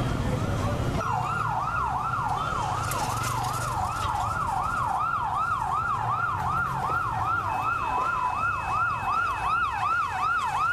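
Emergency vehicle siren in a fast yelp, rapid wailing sweeps repeating about three times a second, starting about a second in, over a low steady street rumble. A second, fainter siren tone joins in the later part.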